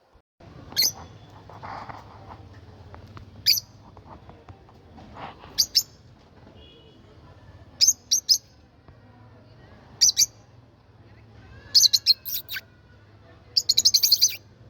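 A bird chirping in short, high-pitched calls every couple of seconds, ending in a faster run of rapid notes near the end, over a low steady hum.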